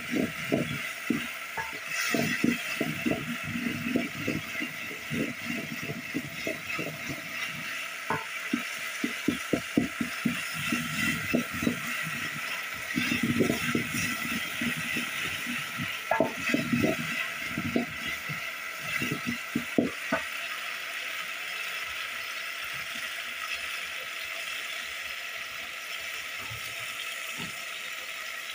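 A utensil stirring and scraping tomatoes and onions in a metal cooking pot, in quick irregular strokes that stop about two-thirds of the way through, over a steady faint sizzle of frying.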